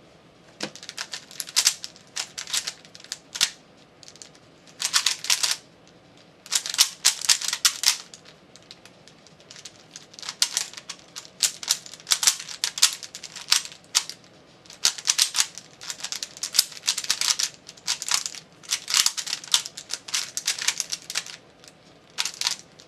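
Rubik's brand 3x3 cube being turned fast during a speedsolve: rapid plastic clicking and clacking in bursts of turns, broken by short pauses to look at the cube.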